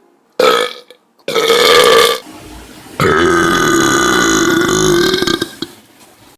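A person belching loudly on command: two short burps in quick succession, then one long, drawn-out belch held at a steady pitch for about two and a half seconds.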